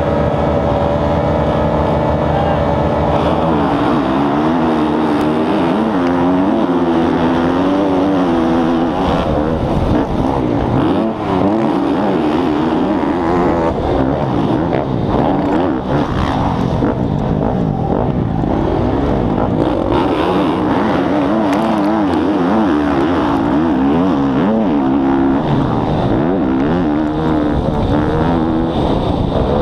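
Motocross bike engine heard from the bike's own onboard camera. It holds a steady pitch for the first few seconds, then revs up and drops again and again as the rider accelerates hard and shifts through the gears on the dirt track.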